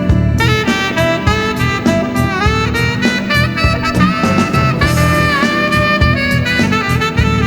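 Cannonball tenor saxophone playing a slow melody of held notes, scooping up into some of them, over a backing track with a steady drum beat and bass.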